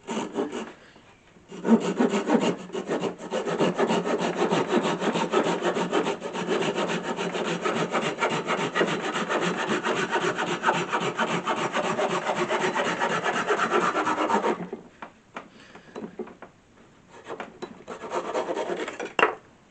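Hand saw cutting a piece of wood in rapid, steady back-and-forth strokes for about thirteen seconds, then stopping. A few shorter, lighter strokes follow near the end.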